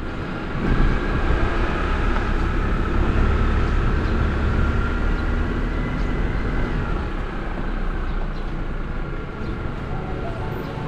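A moving vehicle: steady engine and road noise, louder from about a second in.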